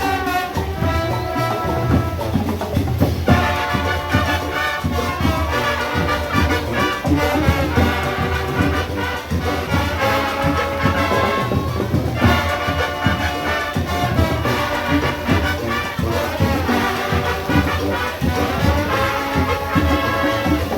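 Marching band playing: brass horns carry the melody over drums and percussion.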